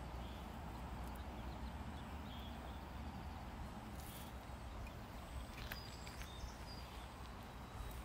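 A small child's footsteps on a metal drainage grate, a few light, irregular taps over a steady low rumble.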